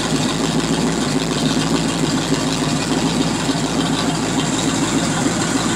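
Sterndrive boat engine idling steadily while run out of the water on a hose-fed flush attachment, with water spattering from the drive onto concrete.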